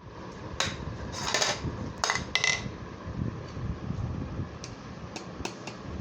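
Dishes and a spoon clinking and clattering several times in the first few seconds, one clink ringing briefly, then a few lighter clicks, over a steady low hum.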